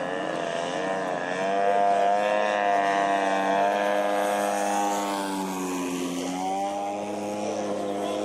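Electric motor and propeller of a 1450 mm AirField RC P-51 warbird model running hard as it takes off and climbs out. It makes a steady whine whose pitch wavers up, dips about five to six seconds in, then holds.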